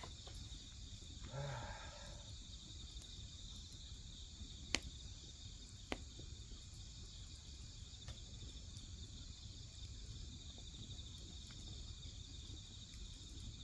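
Crickets chirring steadily, with two sharp pops from burning firewood, one a little under five seconds in and another about a second later.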